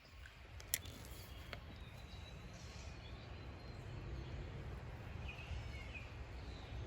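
Creekside outdoor ambience: a low steady rumble with a few faint bird chirps, and a single sharp click about three-quarters of a second in.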